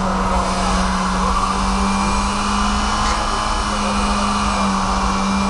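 Volkswagen Passat's engine held at steady high revs while its front wheels spin in place on the asphalt in a burnout, the car held back by a rope so it cannot move off.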